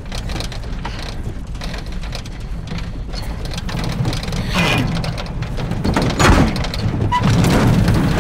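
Old pickup truck running while being driven, heard from inside the cab as a steady low rumble that grows louder toward the end.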